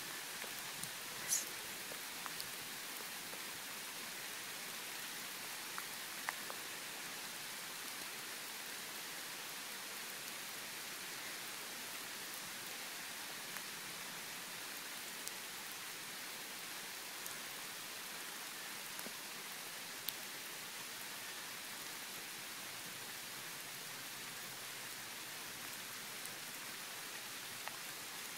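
Steady rain hissing on wet asphalt and grass, with scattered faint ticks of individual drops.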